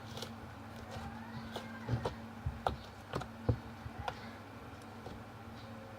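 Slime being squeezed and worked by hand, giving a few short, sharp clicks and pops, clustered between about two and four seconds in.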